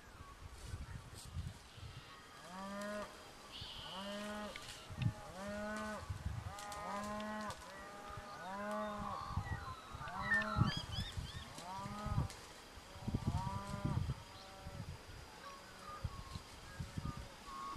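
Fallow buck giving its rutting groan: a series of about a dozen deep, belching calls, roughly one a second, each a short arched call.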